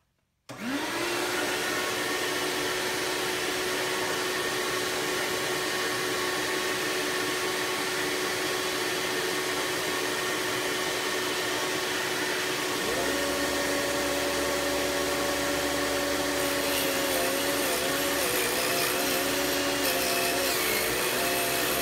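Small shop vac switched on about half a second in, its motor whining up to a steady pitch under a rushing hiss. About 13 seconds in, the mini table saw's motor starts and runs alongside it, its whine wavering in the last few seconds as a wooden board is fed through the blade to shave a little off.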